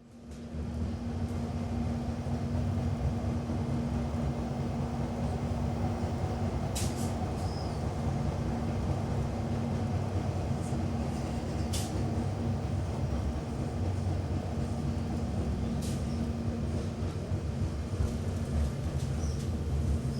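Train running on the rails: a steady low rumble with a constant hum, fading in at the start, and a few sharp clicks spread through it.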